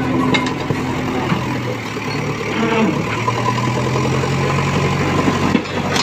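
JCB backhoe loader's diesel engine running steadily under work, its pitch rising a little about halfway through.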